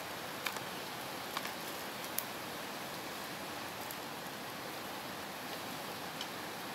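Steady rushing hiss of a flowing river, with a few sharp crackles from a small wood cooking fire about half a second, a second and a half and two seconds in.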